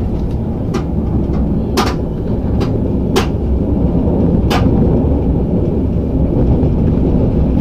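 Running noise of a moving train heard from inside the carriage: a steady low rumble with about five sharp clicks in the first five seconds.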